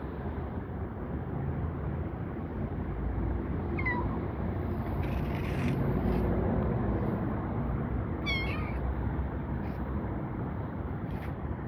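Kitten meowing twice, two short high-pitched meows about four and eight seconds in, over steady low background noise.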